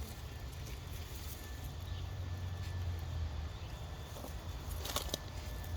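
Hands digging through the soil of a potato container: faint rustling, with a few short clicks and knocks near the end, over a steady low rumble.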